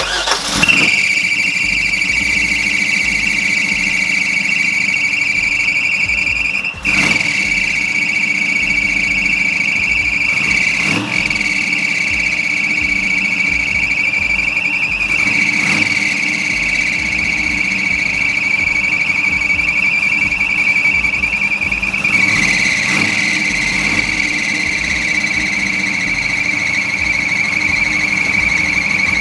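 The alternator on a 1964 Chevrolet Impala Super Sport screams with a loud, steady high-pitched squeal over the running engine. It dips briefly twice and drops slightly in pitch near the end. With a brand-new belt fitted, the owner takes the scream as the sign that the alternator is bad.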